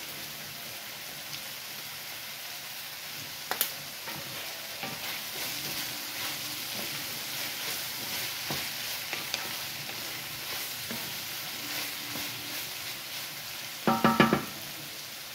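Frozen mixed vegetables (broccoli, cauliflower, carrots) sizzling as they sauté in a skillet, stirred with a wooden spoon that scrapes and taps the pan, with one sharp knock about three and a half seconds in. A brief louder pitched sound comes near the end.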